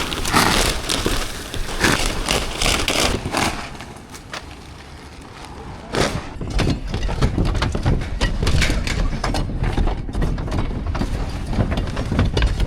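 Old asphalt shingles being ripped off a roof down to the wooden decking: repeated scraping, cracking and knocks, quieter for a couple of seconds in the middle.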